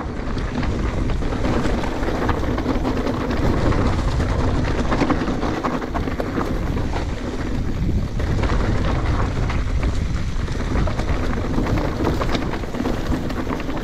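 Wind buffeting the microphone of a camera on a mountain bike in motion, over a low rumble, with many small rattles and crunches from the bike rolling over a rough trail.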